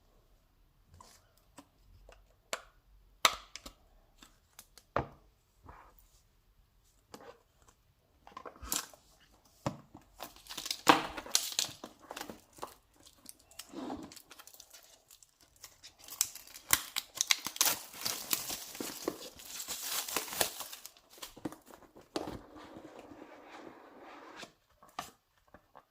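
Packaging of a Blu-ray box set being torn open and crinkled by hand. Scattered taps and clicks of handling come first, then a long stretch of tearing and crinkling from about a third of the way in, loudest around the middle.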